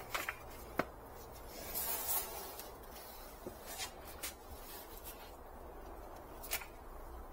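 Gloved hands working loose potting soil around a plastic nursery pot and the tree's leaves: scattered light clicks and knocks with a soft rustle of soil, over a low steady hum. The sharpest click comes about a second in.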